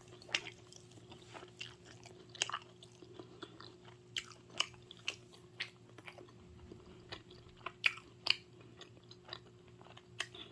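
Close-up chewing of pizza: irregular wet mouth clicks and smacks with a little crunch, a few of them louder, over a faint steady hum.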